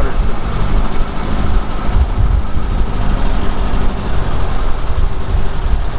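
Volkswagen-based car's engine running steadily, heard from inside the open car under an uneven low rumble.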